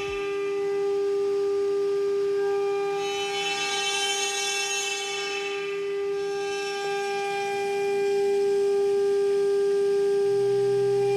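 CNC router spindle running with a steady high whine as its end mill cuts into wood held in a rotary unit. A hiss of cutting swells and fades about four seconds in.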